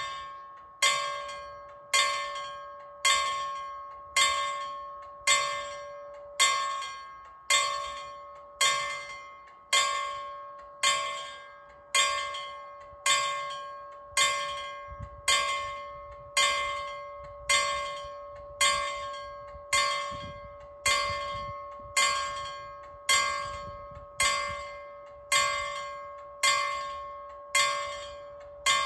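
Danish level crossing warning bells striking in a steady rhythm, about once a second, each stroke ringing and fading before the next. The crossing has been activated, warning of an approaching train.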